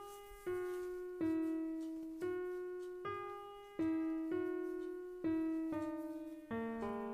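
Background music: a slow keyboard melody played as single piano-like notes, each struck and left to die away, about ten in all.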